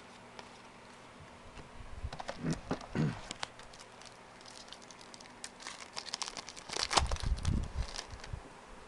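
A trading card pack wrapper being torn and crinkled in two spells of crackling. The second spell is longer and louder.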